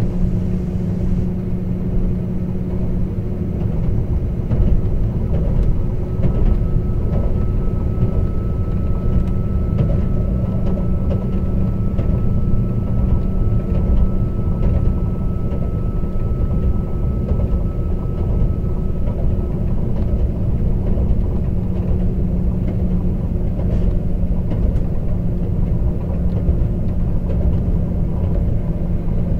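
Class 197 diesel multiple unit under way: its underfloor diesel engine drones at steady revs over the rumble of wheels on rail, heard from inside the carriage. A faint high whine holds steady for about twelve seconds in the middle.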